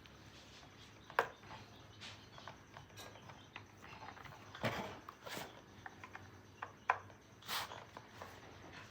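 Scattered light clicks, taps and short scraping sounds of hand work on small chainsaw parts and tools, with sharp clicks about a second in and near the seventh second; the saw's engine is not running.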